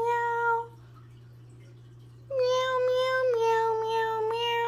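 A person singing drawn-out 'meow' notes in a high voice, imitating a cat: a short one that ends about half a second in, then a long held one starting a little after two seconds that steps down in pitch partway through.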